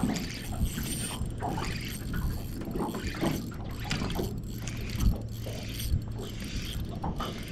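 Spinning fishing reel being wound in short spells, its gears clicking, over a steady low hum.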